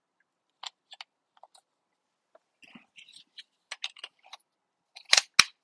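Light plastic clicks and taps of batteries being fitted into a remote control's battery compartment, with two louder sharp clicks near the end.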